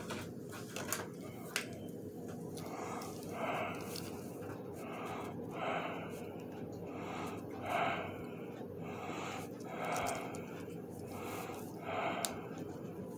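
Heavy, wheezy breathing, a breath about every second, over a steady low hum, with a couple of small clicks in the first two seconds.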